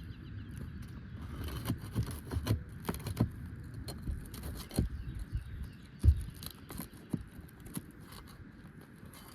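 Irregular clicks, scrapes and knocks of a hand tool working nails out from under asphalt roof shingles, with one heavier thump about six seconds in.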